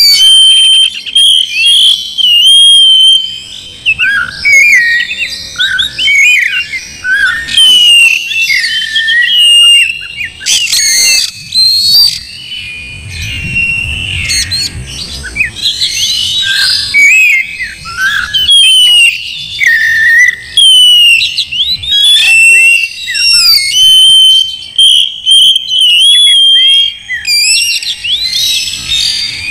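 Oriental magpie-robin (kacer) in full, loud song: a near-continuous run of varied whistles, quick rising and falling notes and chirps with only short breaks.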